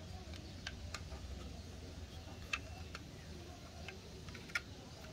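A few faint, sharp clicks, spaced irregularly over about four seconds, over a low steady hum.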